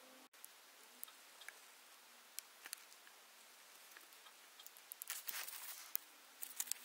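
Faint scattered clicks and small handling noises over near quiet, with a short cluster of them about five seconds in and a few more near the end.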